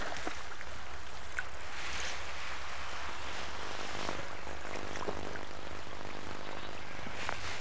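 A hooked trout splashing at the water's surface as it is played towards the landing net, a few short splashes over a steady low hum. A droning engine tone comes in about three seconds in and runs under the splashes.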